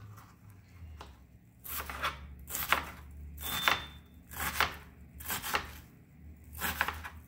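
Chef's knife dicing a white onion on a plastic cutting board: quick knife strikes against the board in small groups about once a second, over a faint low hum.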